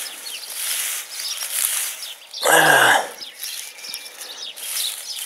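Dry straw mulch rustling and crackling as a hand pushes it aside by hand. A brief low voice sound, like a grunt or throat-clearing, cuts in about halfway through.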